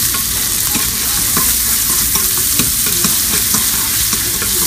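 Smoked bacon and chopped shallot sizzling steadily in a pan while being stirred, with short scattered scrapes and taps of the utensil against the pan.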